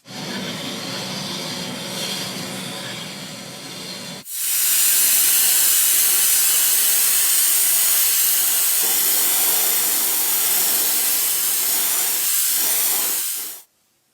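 Compressed air hissing steadily in two stretches. The first, for about four seconds, is duller. The second is louder and brighter and cuts off sharply near the end.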